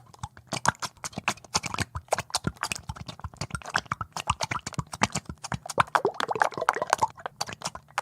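Bubbles plopping and popping in liquid: a dense, irregular run of many small plops every second, oil bubbles rising in water.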